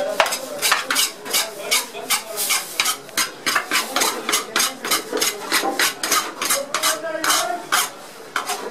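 Metal spatula scraping and scooping rice across a large shallow steel pan, in quick repeated strokes of about three or four a second.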